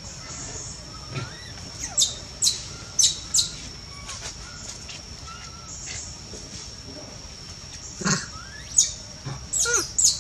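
Short, high-pitched chirping calls, each falling quickly in pitch, come in a cluster about two seconds in and again near the end, over a steady high-pitched drone.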